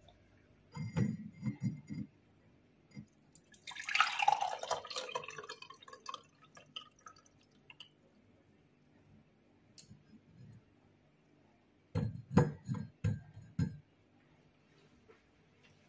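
Hot herbal infusion poured from a saucepan through a stainless-steel mesh strainer into a glass mug: a few clinks of metal on glass about a second in, a splashing pour from about four to six seconds that thins to a faint trickle, then a quick run of knocks of the strainer against the mug near the end.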